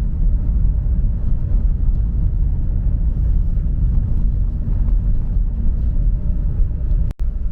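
Car driving on a road, heard from inside the cabin: a steady low rumble of engine and tyres. It drops out abruptly for a split second near the end.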